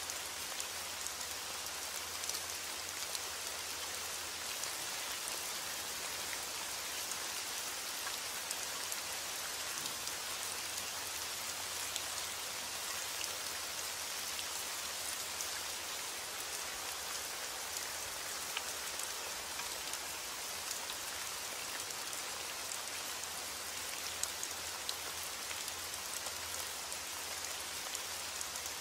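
Steady rain: an even hiss of falling rain with scattered, sharper drop ticks, unchanging throughout.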